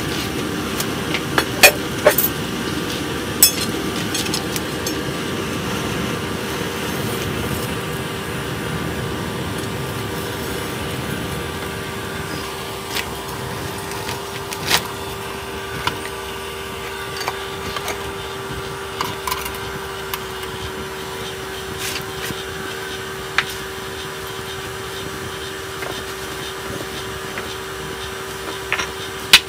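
Air blower forcing air into a charcoal forge: a steady hum with an even rush of air, with scattered sharp pops and clicks from the burning coals. The rush is louder in the first third and eases off.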